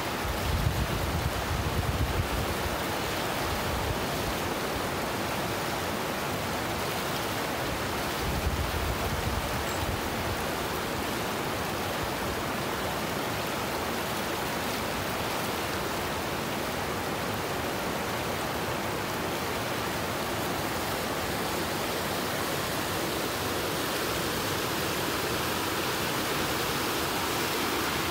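Wahnapitae River rapids rushing steadily over rock. Brief low buffeting on the microphone in the first couple of seconds and again about eight seconds in.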